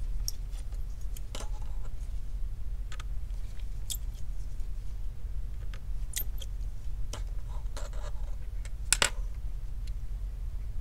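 Scattered small, sharp metallic clicks and ticks of small repair tools on the tiny screws and metal bracket inside an iPhone 11 Pro Max, the loudest about nine seconds in, over a steady low hum.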